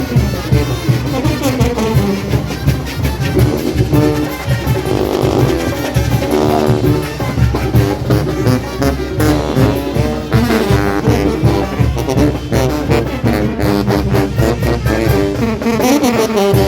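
Brass band playing a dance tune from a medley: horns over a steady drum beat.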